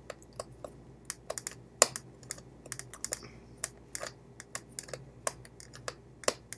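Small screwdriver backing a tiny screw out of a wireless mouse's circuit board: irregular sharp clicks and ticks of the bit working in the screw head, several a second, with one louder click about two seconds in.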